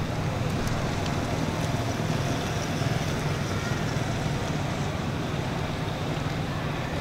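Steady outdoor background noise: wind on the microphone over a constant low hum like distant traffic, with no distinct events.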